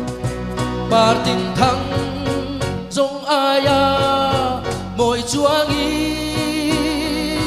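Male vocalist singing a Mizo-language song into a microphone with a live band accompanying him, holding a long note with vibrato in the middle.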